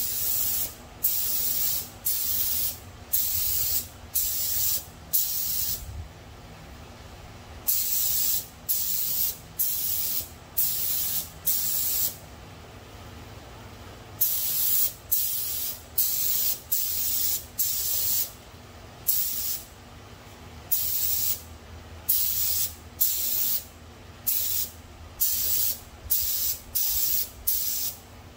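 Compressed-air gravity-feed spray gun laying down automotive base coat in short hissing passes, each about half a second to a second, with a brief pause about six seconds in and a longer one near the middle.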